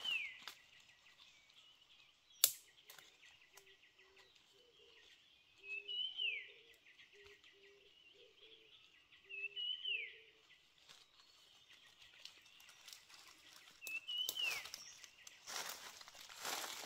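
A forest bird repeats a short high call ending in a quick downward sweep, about every three to four seconds. A sharp click comes a couple of seconds in, and dry leaves crunch near the end.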